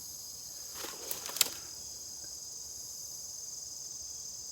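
A steady, high-pitched chorus of insects calling. About a second in, it is broken by a brief crackle and two sharp clicks.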